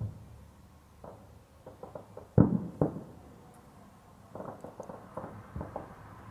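Distant fireworks going off over a lake, heard as a loose run of dull, muffled booms and pops, with the two loudest close together about two and a half seconds in and another cluster near the five-second mark.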